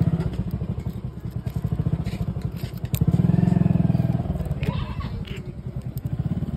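A motorcycle engine running with a fast, even pulse, swelling louder for about a second between three and four seconds in.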